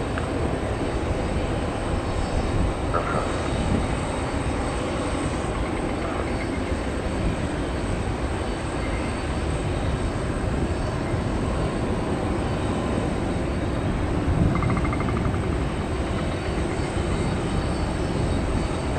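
Steady jet-engine rumble of an arriving Airbus A330-300 twinjet, with no clear rise or fall.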